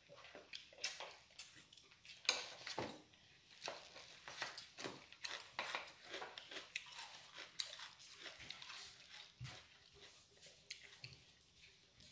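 A person chewing food, faint, with irregular soft clicks and taps of eating.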